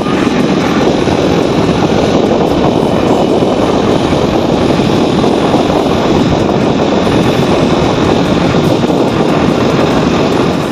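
Loud, steady rush of wind buffeting the microphone while travelling along a highway at speed, with vehicle noise underneath.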